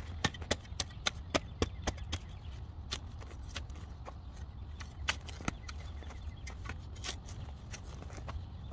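Sharp chopping strikes of a hand tool cutting through tree roots and soil while digging out an evergreen's root ball. They come quickly, about three or four a second, for the first two seconds, then more spaced and irregular.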